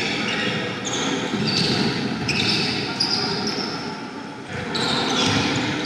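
Live basketball play on a hardwood court: sneakers squeak again and again in short, high chirps as players cut and stop, over a ball bouncing and the din of the gym.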